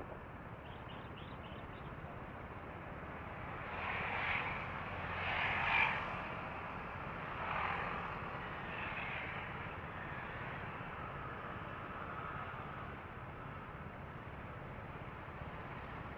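Street traffic at an intersection, heard from a stopped scooter: a few vehicles pass by, the loudest about six seconds in, over a steady low hum.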